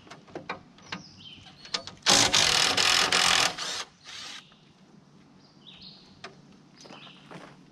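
Cordless impact wrench hammering for about a second and a half while backing out a bumper bolt, then a brief second short burst. Light clicks and knocks of tools and metal parts around it.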